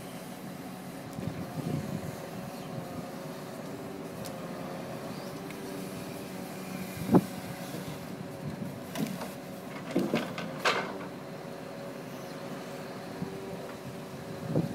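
Engine and hydraulics of a lorry-mounted Epsilon timber crane running steadily, with wooden knocks and clunks as the grab handles logs. There is one sharp knock about seven seconds in and several more around ten seconds in.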